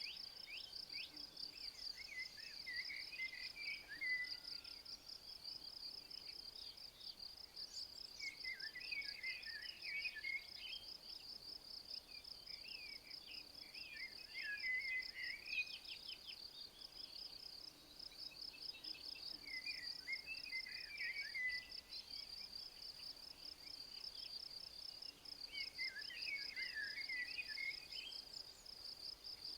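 A cricket or bush-cricket chirring steadily, a high, fast-pulsing trill that breaks off briefly a few times. A songbird sings a short warbling phrase about every five or six seconds, five times.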